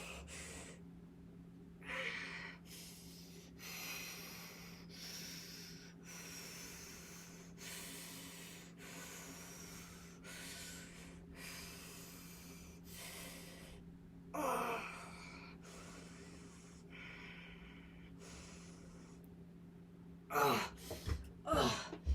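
A woman breathing hard in and out in a steady rhythm from the effort of resistance-band curls, with a louder voiced exhale about two thirds of the way through and a few short voiced breaths near the end. A steady low hum sits underneath.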